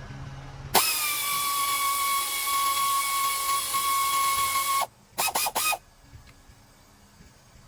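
A handheld power tool runs at a steady speed with a high motor whine for about four seconds. It is then pulsed in three short bursts, as when loosening fasteners during an engine teardown.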